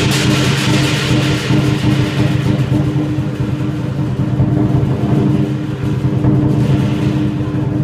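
Chinese lion dance percussion of drum, cymbals and gong playing a loud continuous roll. Rapid cymbal clashes ring together into a dense, sustained wash over the deep steady ringing of the drum and gong.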